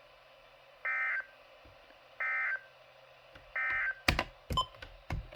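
Emergency Alert System end-of-message data tones from a radio: three short, identical warbling bursts about a second apart that close the weekly test alert. Several sharp clicks and knocks follow near the end.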